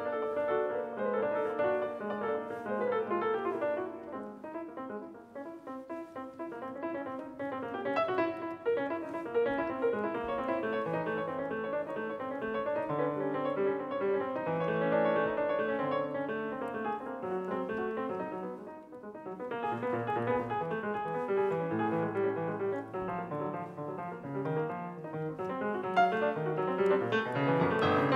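Solo grand piano played with dense, rapid clusters and runs of notes. It thins and drops quieter about five seconds in and again around two-thirds through, then builds louder near the end.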